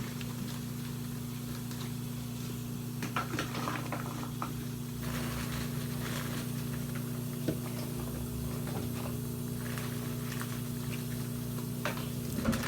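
Quiet eating sounds, a few faint short clicks of chewing and handling food, over a steady low electrical hum.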